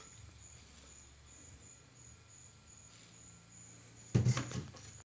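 A plastic blender jug handled on a tabletop gives a short cluster of loud knocks and clatter about four seconds in. Behind it, a faint high chirp repeats about twice a second.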